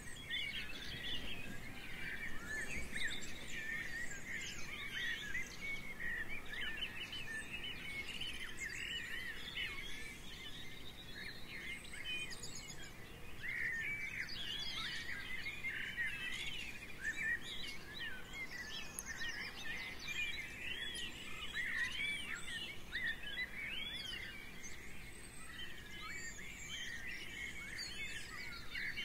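Many small songbirds chirping and singing at once, a continuous busy chorus of quick, high, overlapping notes.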